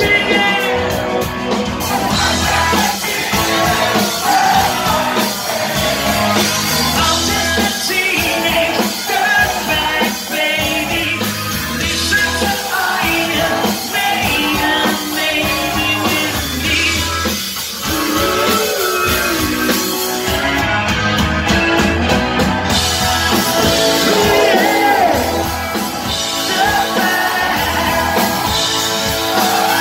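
Live rock band playing loudly, with singing over guitars and drums, heard from within the crowd.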